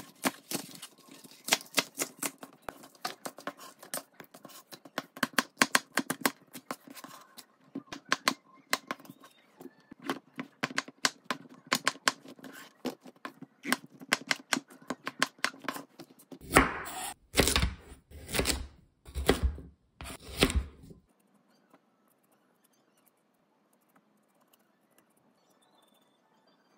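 Chef's knife cutting vegetables on a plastic cutting board: quick, rapid knife taps for most of the first two-thirds, then about five longer, louder cutting strokes, then it falls almost quiet.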